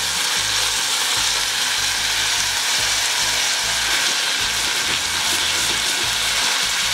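Frozen green peas and garlic frying in olive oil in a small stainless steel saucepan, sizzling with a steady, even hiss.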